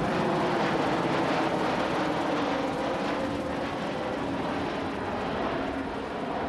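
Airbus A220-300 jetliner flying past, the engines running with a dense rushing noise. Several tones in the sound slowly drop in pitch as the aircraft draws away, and the level eases a little near the end.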